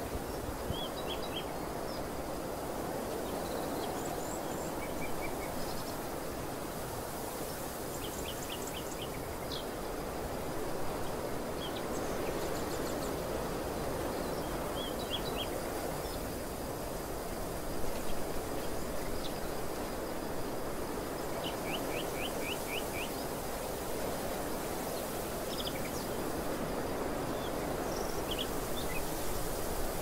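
Steady rushing wind over an open field, with small birds chirping in brief quick runs of high notes scattered throughout; the longest run is about six rapid notes a little past two-thirds of the way in.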